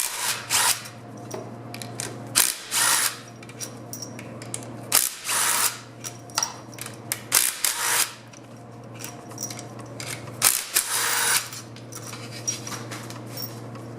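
Handheld power tool spinning out the 13 mm bolts that hold the 700R4 transmission's front pump, in about nine short bursts of a half-second or so, over a steady shop hum.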